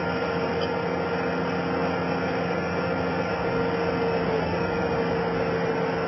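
Skid steer loader engine running steadily, with a steady whine over the engine noise.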